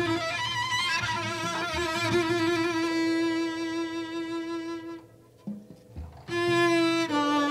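Jazz: an unaccompanied bowed double bass (arco) playing a slow line of long held notes with a slight vibrato. It breaks off for about a second around five seconds in, then carries on.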